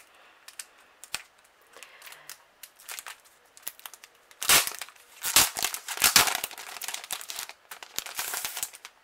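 Plastic wrapping and card packaging rustling as a notebook is taken out of its sleeve. Light scraping at first, then loud crinkling in several spells over the second half.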